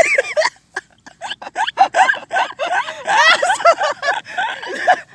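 People laughing and giggling, one short laugh after another, with a few wordless exclamations.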